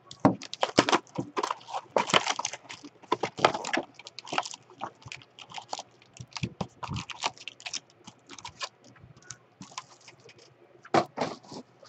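A cardboard box of 2017 Panini Prestige football cards being opened by hand and its foil-wrapped card packs rustling and crinkling as they are pulled out and set down on a table, a rapid, irregular run of crackles and clicks.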